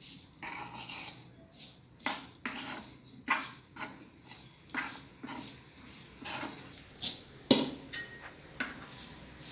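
A metal spoon stirring small steamed rice dumplings in a metal kadai, scraping and clinking against the pan in irregular strokes, about one or two a second.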